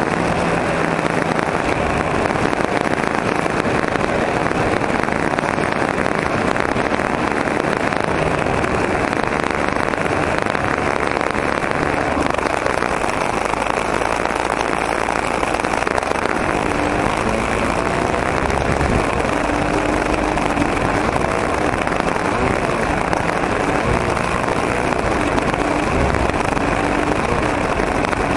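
OS .40 glow engine of a model airplane, heard through the small camera mounted under the fuselage: a steady, dense buzz. The engine keeps running as the plane lands and rests on the grass.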